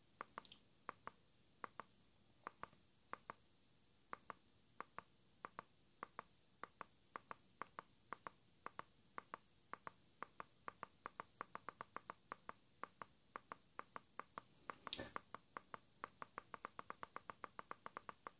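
Plastic buttons of a handheld universal remote control clicking as they are pressed over and over, irregular at first and quickening to about five clicks a second in the second half. One louder knock comes about fifteen seconds in.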